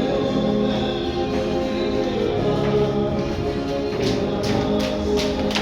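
Music: a Spanish-language song with singing over a steady accompaniment, with a few sharp clicks in the last second and a half.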